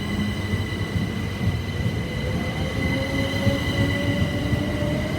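Electric multiple-unit train pulling out of the station: low running rumble with steady high whines, and a motor whine that rises slowly in pitch as it gathers speed.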